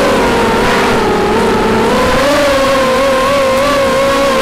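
Racing quadcopter's Cobra 2204 2300KV brushless motors and propellers whining at high throttle, the pitch climbing slightly and wavering as the throttle changes, with wind rumbling on the onboard camera's microphone.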